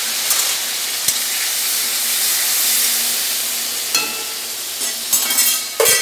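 Chopped tomatoes sizzling in hot oil in an aluminium kadai, with a metal spatula clicking and scraping against the pan. Near the end the spatula clatters down onto the pan and stove.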